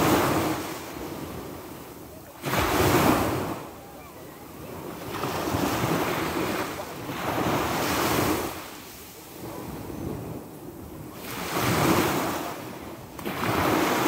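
Sea waves breaking on the shore one after another, each surge of surf rising and ebbing every two to three seconds. The sharpest crash comes about two and a half seconds in.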